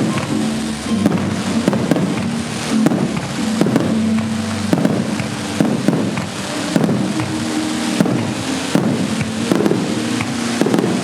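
Fireworks shells bursting in a rapid, irregular series of sharp bangs and crackles, over background music with sustained low notes.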